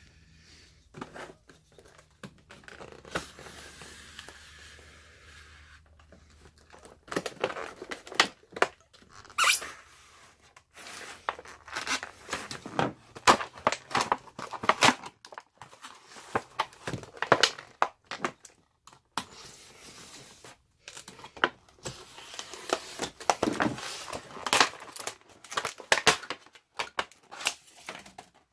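Plastic packaging being torn and crinkled, with many sharp clicks and knocks as a plastic bit case is handled and opened. The first few seconds are quieter.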